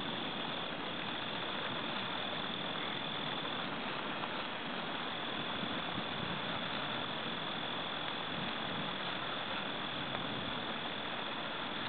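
Steady night chorus of crickets: one continuous high trill over an even hiss, with no thunder or other sudden sound.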